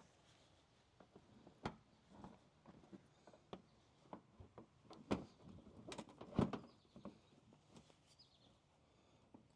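Faint, scattered clicks and knocks of bolts and parts being handled while a front mud flap is fitted to the wheel well, with two louder knocks about five and six and a half seconds in.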